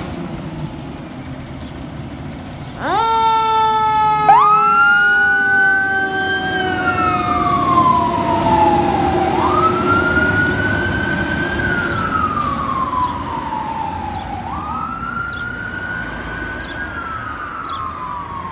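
Fire engine responding with sirens: a diesel engine runs for the first few seconds, then a deep siren tone with many overtones cuts in sharply and slowly sinks in pitch. A second later an electronic wail starts, rising and falling about every five seconds.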